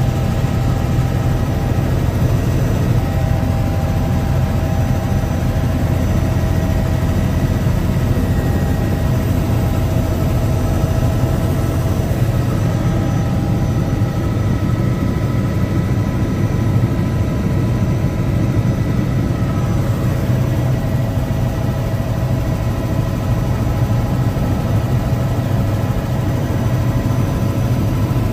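Helicopter in flight heard from inside the cabin: a steady low drone of rotor and engine, with a few steady whining tones over it.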